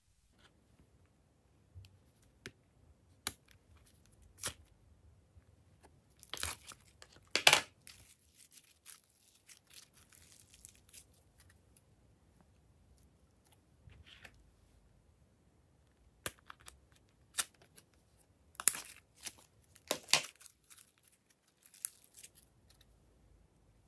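Thick slime being stretched, pulled apart and pressed by hand: scattered sticky clicks and short crackling tears, with the loudest bursts about a quarter of the way in and again past three-quarters.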